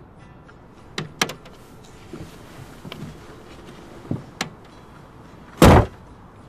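Small clicks and knocks inside a car, then a car door shutting with a loud thump near the end.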